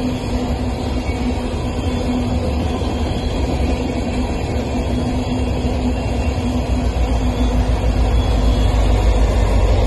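Loaded-or-empty coal train rolling past steadily, the wheels and hopper cars making a continuous rumble with a steady hum. The two rear diesel locomotives pass near the end, and the low rumble grows louder.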